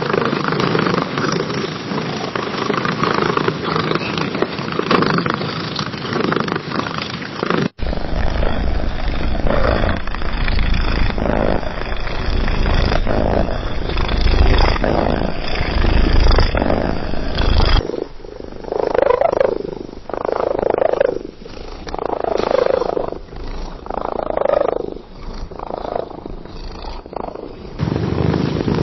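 Cats purring in three separate recordings that switch abruptly, about 8 and 18 seconds in. The first two are a steady, continuous purr. The last pulses in and out about once a second.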